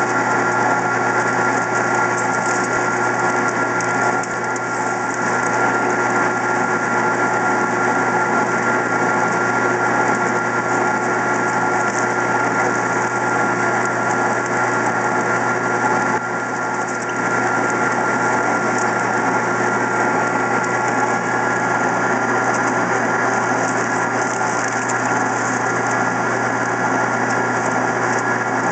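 Benci TY-C0632 metal lathe running steadily under a heavy cut in mild steel, a 3/8-inch depth of cut at 70 rpm with no coolant: a constant motor and gear hum with several steady whining tones. The level dips briefly about four seconds in and again about sixteen seconds in.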